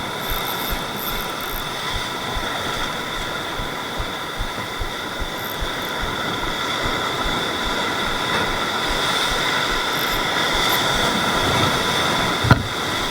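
Rough sea surf washing over rocks, a steady rushing noise that swells slightly toward the end. A steady high-pitched whine runs throughout, and there is one sharp thump near the end.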